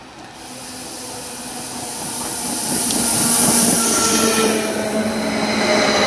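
Double-deck electric multiple unit train approaching and running past alongside the platform, growing louder to a peak about three and a half seconds in. A strong high hiss rides over several faint tones that slowly fall in pitch.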